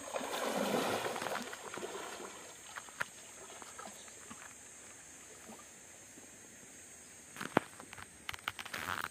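Water sloshing and splashing as a person wades waist-deep through a river, loudest in the first second or so. Near the end come a few short sharp splashes as the person handles a fishing net in the water.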